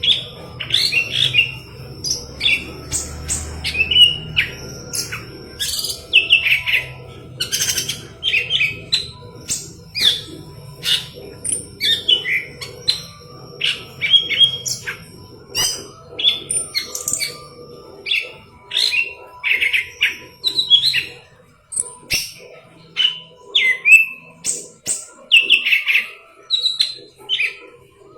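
Leafbird singing a fast, unbroken run of varied chirps, warbles and short whistles, with loud phrases coming about once or twice a second.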